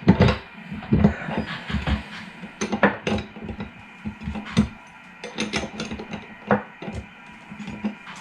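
Irregular metallic clicks and clinks from a wrench working loose the nut that holds the shift handle on a car's manual shifter assembly, with the metal parts knocking against each other.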